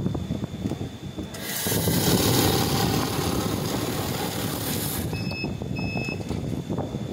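Currency-counting machine feeding a stack of paper banknotes: after a second or so of the notes being handled in the hopper, a fast, even rushing whir of notes riffling through the rollers lasts about three and a half seconds, then the feed stops and the machine gives two short beeps.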